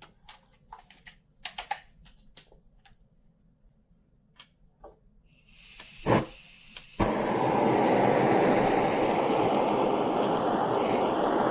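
Light clicks of small metal pieces being handled. About six seconds in, a butane torch hisses and lights with a short burst, and from about seven seconds its flame burns with a steady, loud rush.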